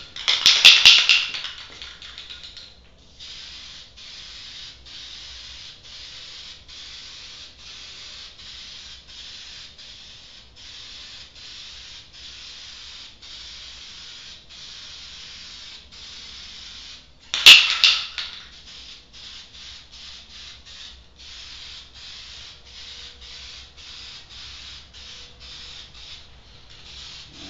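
Rust-Oleum High Heat aerosol spray paint can hissing in repeated strokes with short breaks. A loud rattling burst comes near the start and again about two-thirds of the way through, typical of the can being shaken to stir the paint.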